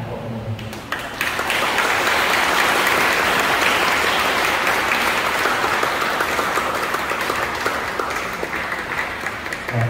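Church congregation applauding: dense clapping that starts about a second in and slowly fades toward the end.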